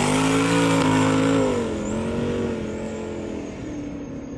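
The 11.7-litre twin-turbo big-block V8 of a jet boat running hard across the water. Its note holds steady at first, then dips lower and fades as the boat pulls away.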